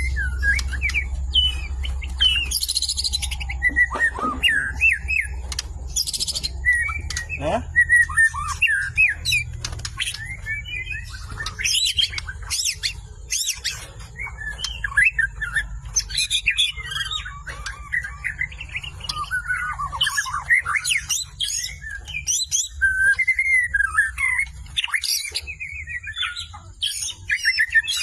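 White-rumped shama (murai batu) in full song: a rapid, unbroken stream of varied whistles, sweeping glides and sharp chips, rich in mimicked fill-in phrases. A low steady hum lies underneath and fades near the end.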